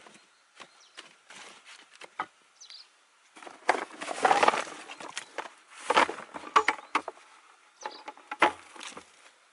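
Dry sticks clattering as a bucketful is tipped out onto the ground, a dense burst of wooden knocks about three and a half seconds in, then a few separate knocks as sticks are handled.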